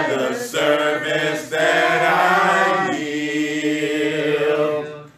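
A man singing unaccompanied, holding long notes; the last note is held steady for about two seconds before it fades out near the end.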